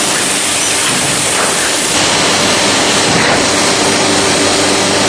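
Through-feed CNC door-making machine running: a loud, steady rushing noise, with a low hum that grows stronger about two seconds in.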